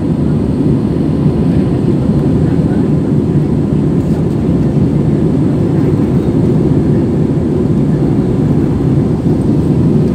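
Steady cabin noise of a jet airliner in flight: the even rushing hum of the engines and airflow, heard from a window seat.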